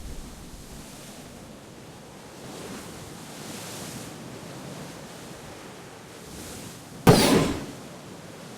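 Steady rushing noise that swells a little twice, then one sudden loud crash about seven seconds in that dies away within half a second.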